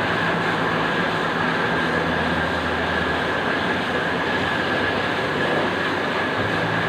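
QZ201 cutting machine running steadily: a constant mechanical hum with a thin, steady high-pitched whine over it.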